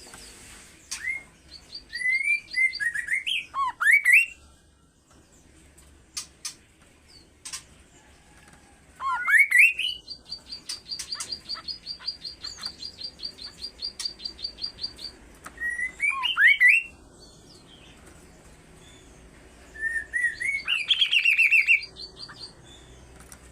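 A kaso-kaso bird singing hard, in short bursts of sweeping whistled notes that slide up and down. In the middle, a long fast ticking trill lasts about five seconds.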